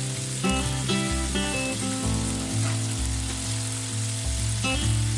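Chicken pieces sizzling as they brown in hot oil in a pan, under background music with a steady bass line.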